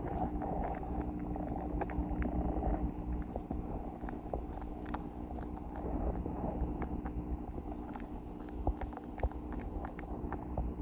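Underwater sound in a garden goldfish pond: a steady low hum with a few held tones, broken by many short, scattered clicks and pops.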